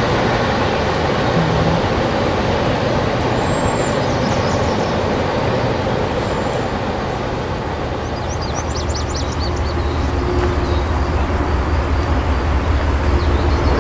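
Freight train cars rolling past on the rails, giving a steady dense rumble, with short high bird chirps and trills a few times over it. In the second half a deeper low rumble builds and grows louder.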